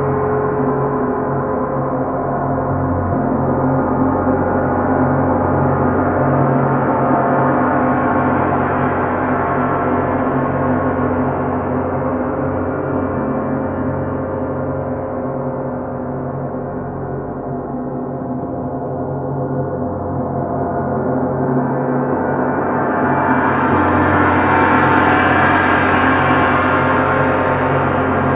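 A 32-inch Sound Creation Earth gong and a 28-inch Planet Jupiter gong played together with soft mallets, making one continuous ringing wash in which no single stroke stands out. It swells, eases off in the middle, then builds to its loudest and brightest toward the end.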